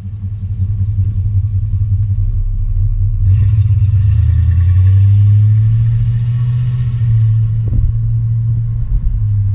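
1960 Dodge Dart Pioneer's 318 V8 running as the car drives off, a low steady exhaust drone that builds over the first few seconds and then holds.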